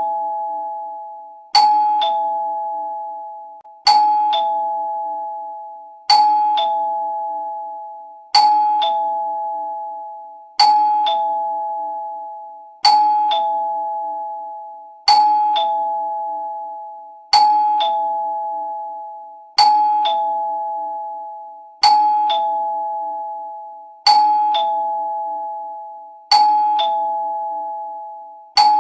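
Two-note ding-dong doorbell chime, a higher note then a lower one, repeating over and over about every two and a quarter seconds. Each pair rings out and fades before the next.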